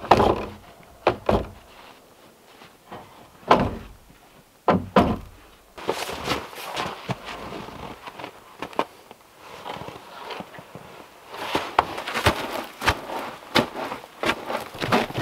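Dull wooden thuds of logs being knocked and set on a log wall, about six in the first five seconds. After that comes a busier run of scraping and crunching footsteps in snow.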